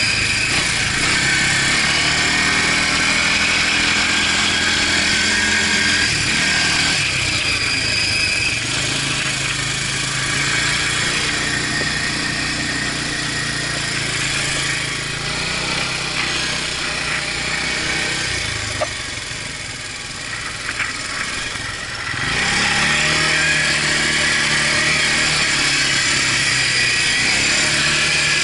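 Quad bike (ATV) engine running under way across sand, its pitch shifting several times with throttle and gear changes, over a steady hiss of wind noise. About eighteen seconds in the engine falls back to a quieter lull, then picks up again suddenly a few seconds later.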